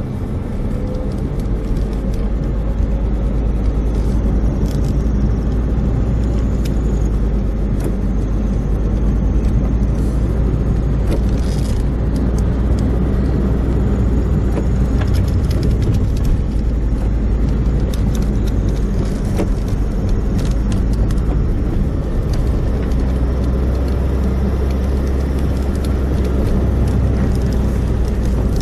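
Car driving along a road, heard from inside the cabin: a steady low rumble of engine and tyres, with a few faint clicks and ticks.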